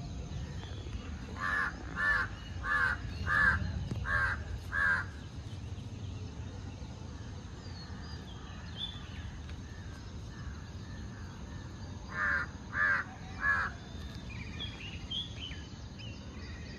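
Crow cawing: a run of six harsh caws in about three and a half seconds, then three more caws near the end. Under them is a steady low outdoor rumble, with faint chirps of smaller birds.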